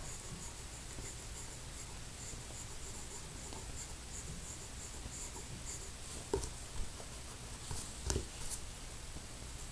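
Pencil scratching lightly on drawing paper in short sketching strokes, with a few soft knocks in the last few seconds.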